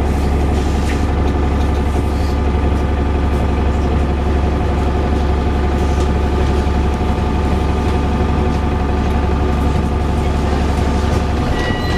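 Wright Gemini 2 VDL DB300 double-decker bus running steadily: a deep, even engine drone with a steady whirring whine on top.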